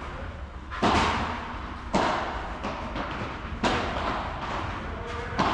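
Padel ball being struck back and forth by padel rackets in a doubles rally: four sharp hits about a second and a half apart, each with a short echo, and fainter knocks between them.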